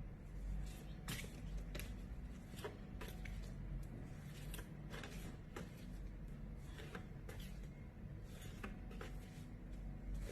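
Faint, irregular clicks and rustles of paper flashcards being handled and flipped one after another.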